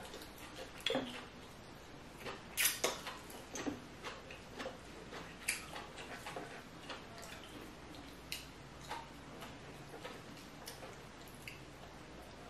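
Fingers picking meat out of a cooked giant lobster claw: scattered small clicks and crackles of shell, the strongest near three seconds in.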